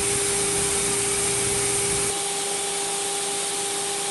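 A woodworking power tool running steadily: a constant motor hum with a hiss of air and machine noise, a little louder for the first couple of seconds.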